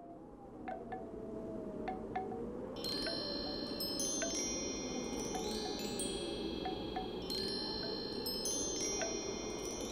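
Wind chimes ringing over a low, wavering wind whoosh. A few single strikes come in the first two seconds, then a dense shower of overlapping chimes from about three seconds in.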